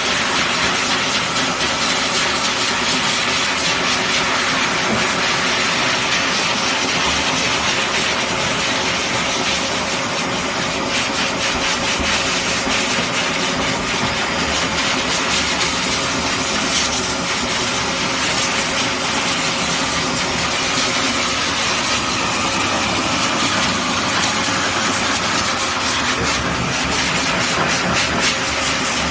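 High-power pet blower dryer running steadily: a loud, even rush of air with a faint steady motor tone under it.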